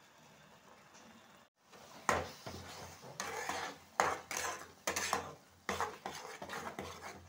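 A white plastic spatula stirs and scrapes thick masala around a non-stick kadai, with repeated knocks against the pan. It starts about two seconds in, after a quiet opening.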